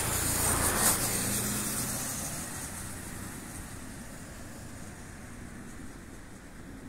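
A car passing on the street: engine hum and tyre noise, loudest about a second in, then fading away into a faint steady hiss.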